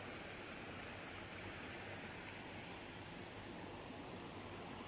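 A steady, even hiss of background noise with no distinct events in it.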